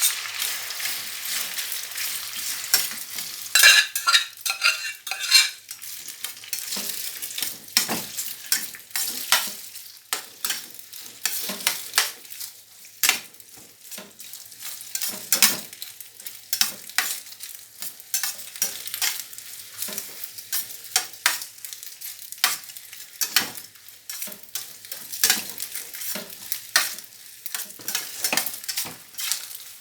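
Egg-yolk-coated macaroni sizzling in hot oil in a frying pan, with a steady hiss. A utensil stirs it and scrapes against the pan in irregular strokes.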